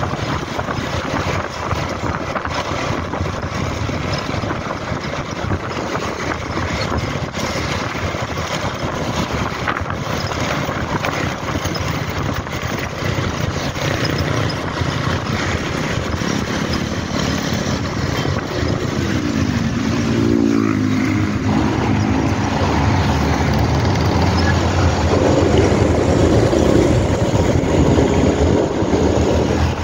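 Riding a motor scooter in traffic: wind rushing over the microphone with the engines of the scooter and nearby traffic running. About two-thirds of the way in a rising engine note is heard, and after that a louder, deeper engine sound grows toward the end, from a box truck running just ahead.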